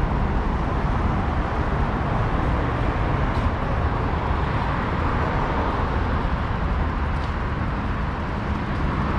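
Steady road traffic noise: cars running along a busy multi-lane city avenue in a continuous wash of sound.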